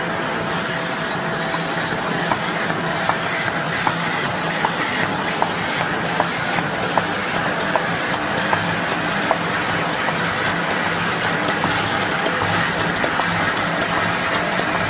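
Envelope gluing machine running steadily: a constant mechanical hiss and whir with a regular click about two to three times a second as each blank is fed and carried through.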